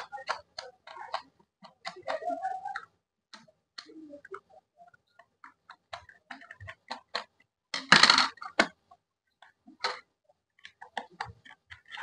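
Screwdriver turning out the screws of a Milton electric kettle's plastic bottom cover: irregular light clicks and ticks of the tool in the screw heads and plastic, with a short squeak about two seconds in and a louder scraping rasp about two-thirds of the way through.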